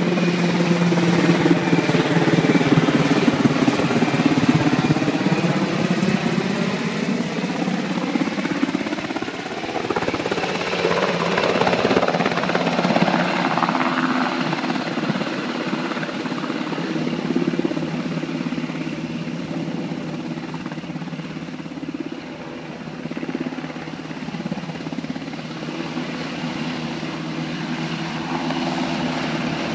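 Firefighting helicopter's rotor and engine running loudly as it flies in with a slung water bucket, then hovers low over the lake to fill the bucket. The sound sweeps in pitch as it passes during the first ten seconds or so, then settles into a steadier hover.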